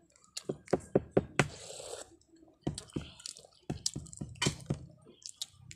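Boiled balut duck eggs being tapped and their shells cracked and peeled. A quick run of about five sharp taps starts half a second in, followed by a short crackle of shell, then more scattered taps.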